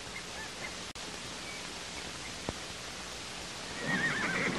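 Steady hiss of outdoor background ambience on an old television soundtrack, with a short warbling pitched sound near the end.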